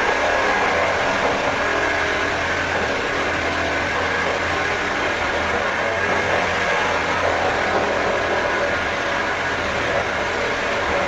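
Power drill running continuously at a steady speed, with no pauses.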